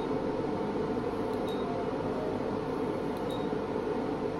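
Steady fan hum of a LightSheer diode laser hair-removal machine, with a faint short beep and click twice, about two seconds apart, as the handpiece fires pulses on the upper lip.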